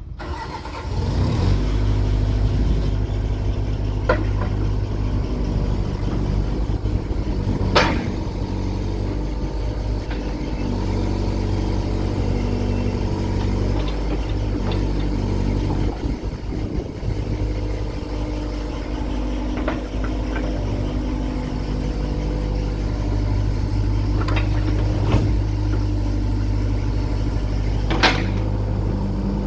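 CAT 308C mini excavator's diesel engine running steadily, its pitch shifting a few times, with several sharp metallic knocks, the loudest about a third of the way in and near the end.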